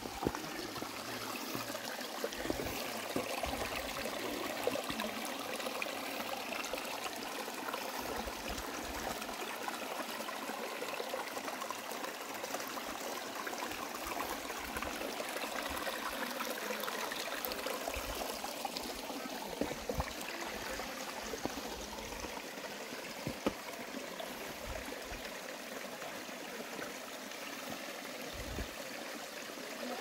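Small, shallow creek trickling and burbling over rocks: a steady water sound, with a few faint clicks scattered through it.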